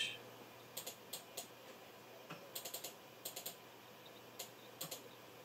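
Computer mouse button clicking: about a dozen faint, sharp clicks, some single and some in quick runs of three or four.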